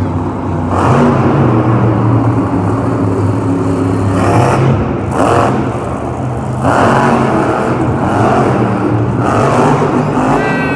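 Monster truck's supercharged V8 engine running loud, revving up in repeated surges over a steady low drone as the truck spins and jumps.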